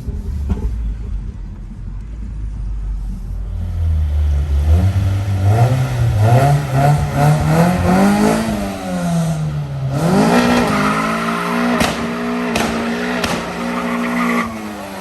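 High-horsepower BMW engine heard from inside the car, running steadily at first, then revving up hard about five seconds in. The pitch dips, climbs again about ten seconds in and holds high with a few sharp clicks, then falls away near the end.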